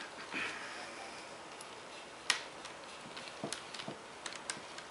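Small screwdriver and screws clicking against the laptop screen's metal mounting brackets as the screws are put back in: a soft rustle at the start, one sharp click a little before halfway, then a run of light irregular ticks.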